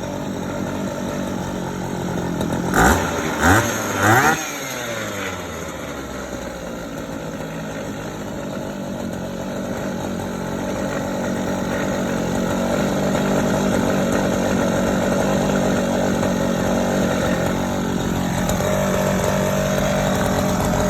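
Small two-stroke engine running with a steady tone. About three seconds in the throttle is blipped three times in quick succession, the pitch rising and falling each time, and then it settles back to a steady run that grows slightly louder.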